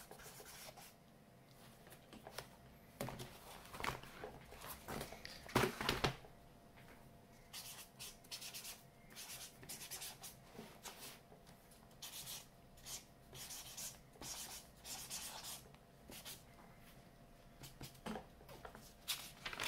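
Fat paint marker drawn across a black sketchbook page in quick tagging strokes, an intermittent scratchy rubbing, with a few louder knocks about four to six seconds in.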